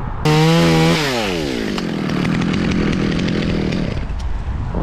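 Chainsaw engine revved hard at full throttle for under a second, then the revs fall away quickly as the throttle is released, and it keeps running lower and rougher, settling toward idle.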